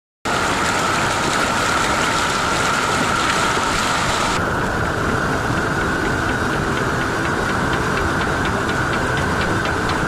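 Rushing water of a swollen, muddy mountain stream in spate: a loud, steady noise of torrent that cuts in abruptly right at the start, its upper hiss easing slightly about four seconds in.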